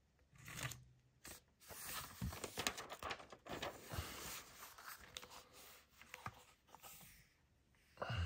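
Paper rustling and crinkling as glossy catalog pages are handled and turned, with light clicks and a soft thud.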